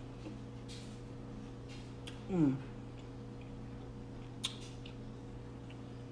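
A woman tasting sauce from a spoon makes one short 'mmm' about two seconds in, falling in pitch, with a few faint mouth clicks. A steady low hum runs underneath.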